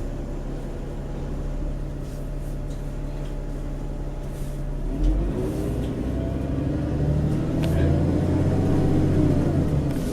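VDL DB300 bus engine running, heard from inside the saloon. About halfway through there is a thump, then the engine gets louder and its note rises and then eases as the bus pulls.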